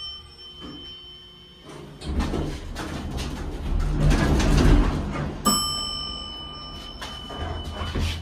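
Heights elevator car door sliding open with a rumble and clatter, followed about five and a half seconds in by a single electronic chime that rings on and fades.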